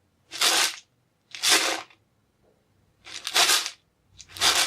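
Dry grain shaken in four short bursts, each about half a second long, with a longer pause between the second and third shake.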